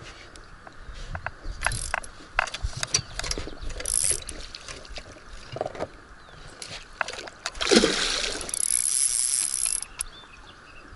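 Tsurinoya FS 2000 spinning reel's drag clicking and buzzing in bursts as a hooked asp (a large fish) runs and pulls braided line off the spool. A louder rushing burst comes about eight seconds in, with a longer buzz of the drag after it.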